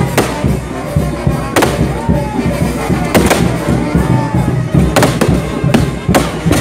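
Fireworks going off: several sharp bangs of rockets and aerial bursts at irregular intervals, over loud music playing throughout.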